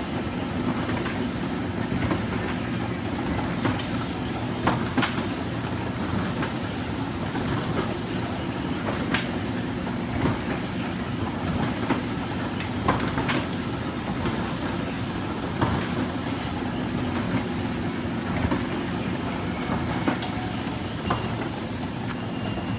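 Spinning kiddie car ride running: a steady low mechanical drone from its drive, with scattered clicks and knocks every few seconds as the hanging cars swing round.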